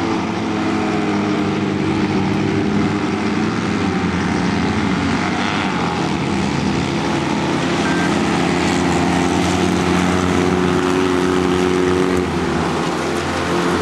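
Citroën 2CV autocross cars' air-cooled flat-twin engines running hard together, a steady engine drone with several pitches at once.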